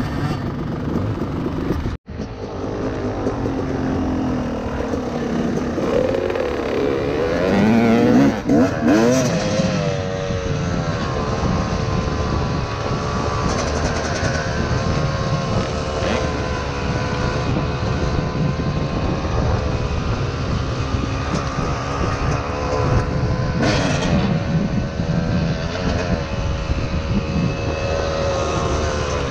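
Two-stroke dirt bike engine heard close up from the rider's helmet camera, revving up and down as it rides, with wind rushing over the microphone. The sound cuts out for a moment about two seconds in; the engine pitch climbs and falls between about six and ten seconds, then holds fairly steady.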